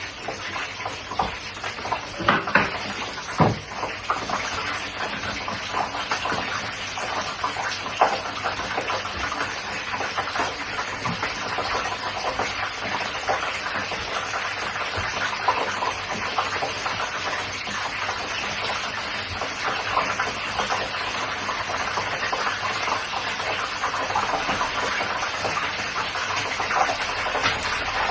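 Fish and sausage deep-frying in hot oil: a steady sizzling and crackling. A few sharp knocks in the first several seconds.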